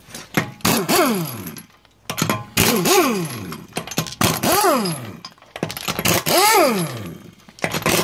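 Impact wrench backing off wheel lug nuts: four short runs about two seconds apart, each ending in a falling whine as the wrench spins down.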